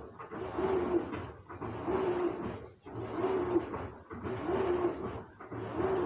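Washing machine agitating a tub of soapy water: churning and sloshing water with a short low motor hum, swelling and dropping in a regular rhythm about every second and a quarter.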